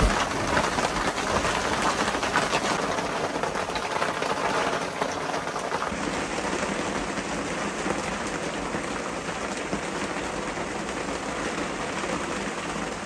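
Heavy thunderstorm rain falling steadily, a dense even hiss of drops on the camper and awning with no let-up.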